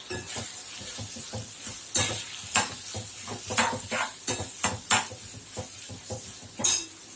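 Spatula stirring and knocking against a kadai as fried chicken pieces are tossed in a sizzling onion, capsicum and soy–chilli sauce mix: a steady sizzle under irregular clanks and scrapes, the loudest about two seconds in and again near the end.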